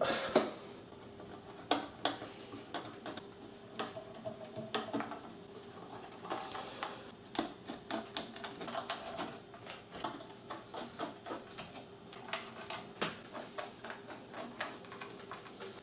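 Screwdriver driving screws back into the mixer's casing: a run of small, irregular clicks and ticks of tool, screws and panel.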